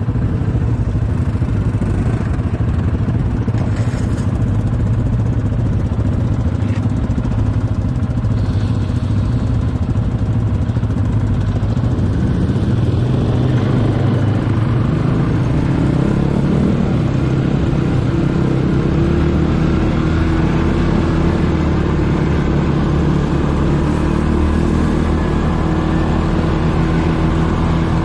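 ATV engine running as the quad is ridden, a loud low rumble with some rattle; about two-thirds of the way through the engine settles into a steady, even note.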